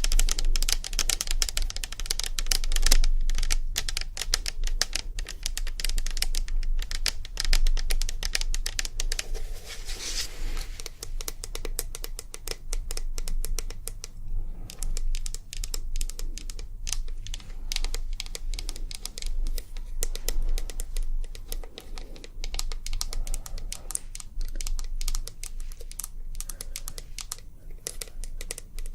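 ASMR tapping: fast, light taps on a hard surface, a dense run of many clicks a second that goes on without a break.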